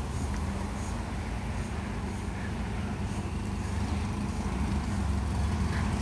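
Road traffic on a city street: a steady low rumble of car engines and tyres.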